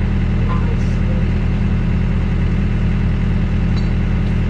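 Yanmar excavator's diesel engine running steadily, a deep even drone.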